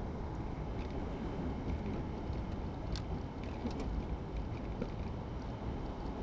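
Steady low rumble of a vehicle on the move, with a few faint clicks.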